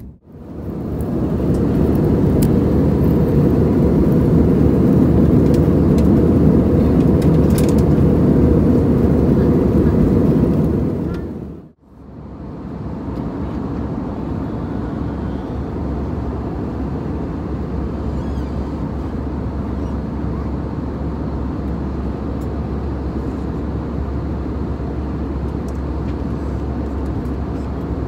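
Steady cabin noise of a jet airliner in cruise flight, engine and airflow rushing together. The noise dips out briefly near the middle and comes back somewhat quieter with a low hum.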